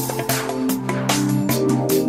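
Electronic background music with a steady beat of sharp percussive hits over sustained synth notes.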